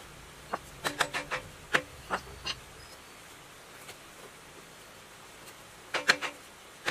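Hammer tapping on metal, seating a round fitting into the side of a diesel engine's cast crankcase: quick light strikes with a short metallic ring, in a cluster in the first two and a half seconds and again near the end.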